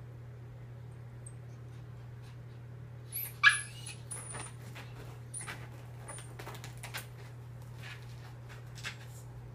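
A chihuahua shut in a zippered pet stroller gives one loud, high distressed cry about three and a half seconds in. A string of short scratches and clicks follows as she works at the stroller to get out.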